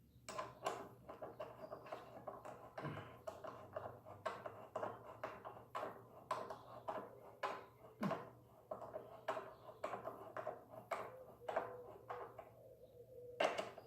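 Irregular metallic clicks and taps with a faint ring, several a second, from a ratchet and 14 mm socket working the bolts of a motorcycle's front brake caliper as it is refitted.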